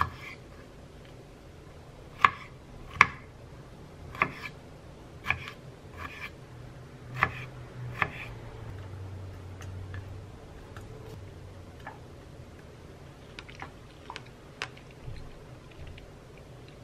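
A kitchen knife slices strawberries on a wooden cutting board: about eight sharp knocks of the blade on the board, spaced irregularly over the first eight seconds. A few fainter clicks follow later.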